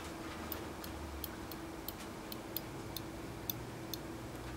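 Faint, irregular clicking, about two or three clicks a second, from the Stork SC15 thermostatic controller's micro switch triggering around its 100 °C setpoint, over a steady low hum.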